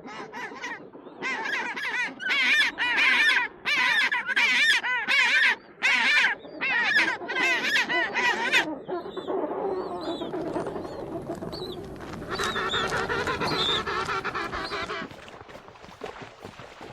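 Penguins calling: a run of loud, harsh repeated calls, each about half a second long, for the first eight seconds or so, then quieter overlapping calls with a few high chirps that fade out a few seconds before the end.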